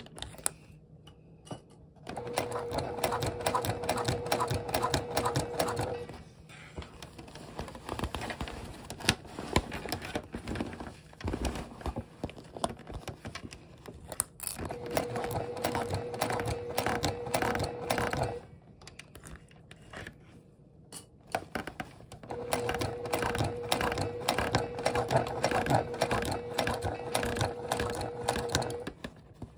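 Domestic sewing machine stitching through thick vinyl in three runs of several seconds each, its motor giving a steady hum with rapid needle clatter. Between the runs the machine stops, and there are scattered clicks and handling noises.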